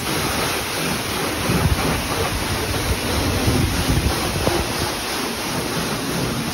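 Self-serve car wash high-pressure wand spraying water onto a car: a steady, loud hiss of spray on the bodywork, with a few low gusts of wind noise on the microphone.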